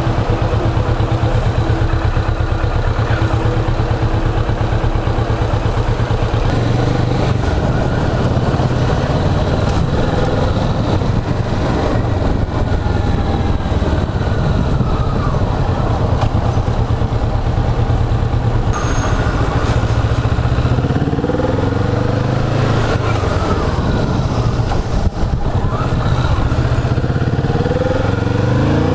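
Kawasaki Vulcan S 650's parallel-twin engine running at low speed in traffic. In the last third it revs up several times, each time rising in pitch as the bike accelerates through the gears.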